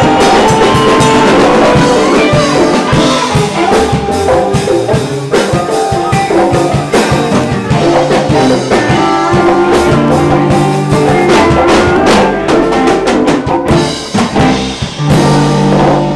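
Live rock band playing, loud and amplified: drum kit, electric bass, electric guitar and banjo together. Near the end the drumming thins out and a low bass note is held.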